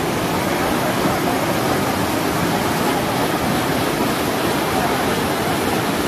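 Small waterfall pouring down a narrow rock channel: a steady, loud rush of falling and splashing water.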